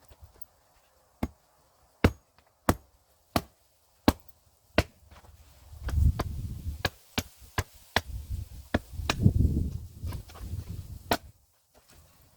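Hand axe chopping into firewood, sped up to double speed: a run of sharp strikes about two-thirds of a second apart, then a louder low rumbling stretch with more strikes in its second half. The piece resists splitting because of twisted, uneven grain.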